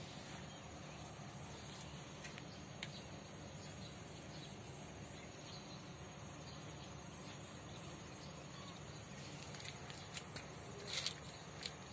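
Faint steady background with a constant high insect drone, like crickets. A few light clicks, and a short, sharper sound near the end.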